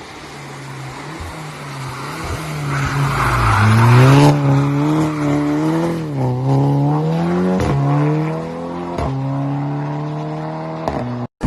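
A car engine and exhaust revving. It grows louder over the first few seconds, then its pitch climbs and drops several times, with a few sharp clicks in the second half.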